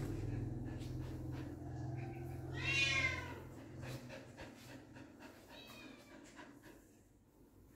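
A young puppy whining: one loud, high-pitched, wavering whine about three seconds in and a fainter, shorter one near six seconds, over a low hum that fades out about halfway through.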